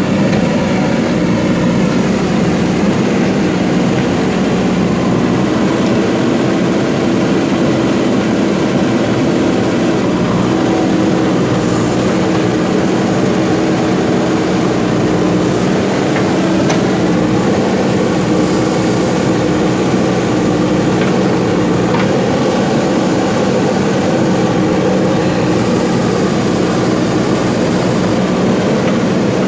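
Machinery running steadily with a constant, unchanging hum.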